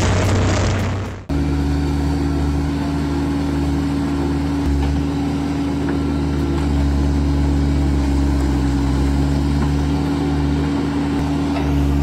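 A dual-shaft wood shredder grinding wood, cut off abruptly about a second in. Then a John Deere 320D skid steer's diesel engine running steadily under load as its stump bucket works against a tree stump.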